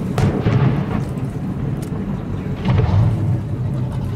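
Aerial fireworks shells bursting with deep booms, one right at the start and another about two and a half seconds in, over continuous low rumbling.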